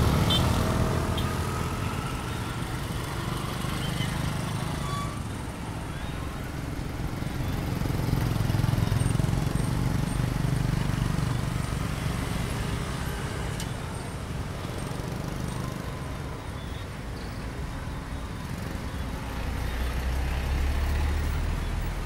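Dense street traffic made up mostly of motor scooters and motorbikes, with cars mixed in: a steady engine rumble that swells about a third of the way in and again near the end.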